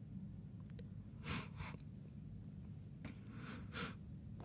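Low-floor wagons of a Rollende Landstraße freight train, carrying lorries, rolling past at a distance: a faint steady low rumble, with two short noisy clatters about two seconds apart.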